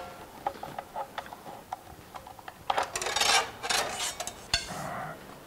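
A miter saw handled during a blade change: a run of sharp metallic clicks, then a couple of longer scraping rattles about three seconds in and a last click near the end.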